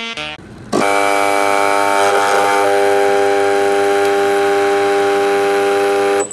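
Espresso machine's pump running as coffee pours into a mug: a loud, steady buzz with a hiss over it that starts about a second in and cuts off suddenly near the end.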